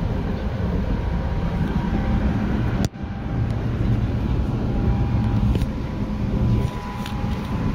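Keio 8000 series electric train running, heard from inside the car: a steady rumble of wheels and running gear with faint steady tones from the Hitachi GTO-VVVF traction equipment. The sound drops out for an instant about three seconds in.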